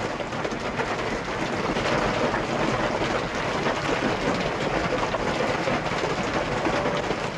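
Hailstones pelting a car's metal body in a dense, continuous rattle of many small impacts.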